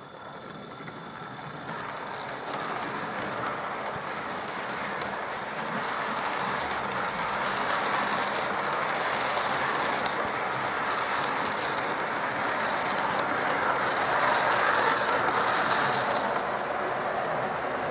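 Model railway 0-4-0 tank locomotive running with a train of nine coaches, at about the limit of what it can haul: a steady whirr and rumble of motor and wheels on the track. It grows louder, is loudest near the end, then eases slightly.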